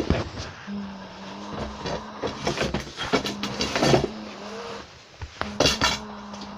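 Metal VM 257 vacuum cleaner with a steady low motor hum that cuts out and resumes several times, amid repeated knocks and rattles.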